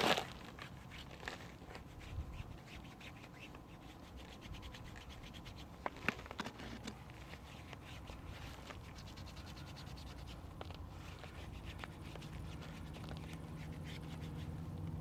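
Cloth rubbing rim cleaner over a car wheel rim: a scratchy scrubbing, with a sharp knock right at the start and another about six seconds in. A low steady hum comes in near the end.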